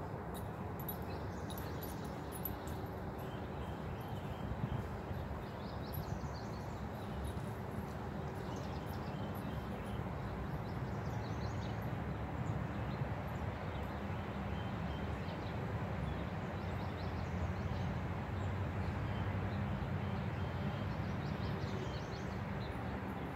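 Outdoor ambience: a steady low rumble with faint bird chirps scattered throughout.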